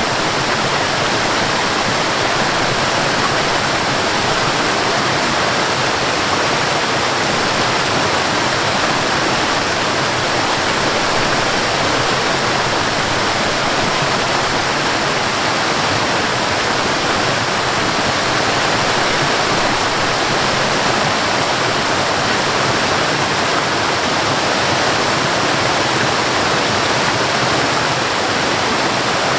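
Stream water gurgling and rushing over rocks as a steady, unbroken rush.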